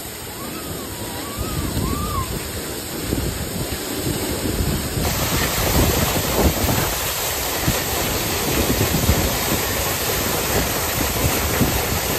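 Running water: first a shallow creek sloshing around bare feet wading through it, then, from about five seconds in, the steady, louder rush of a small waterfall pouring over rocks into a pool.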